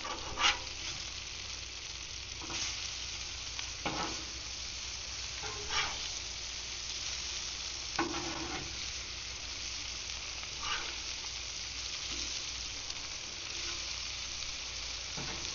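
Fish fillets frying in melted butter on a very hot grill: a steady sizzle, with a few short knocks or scrapes spread through it.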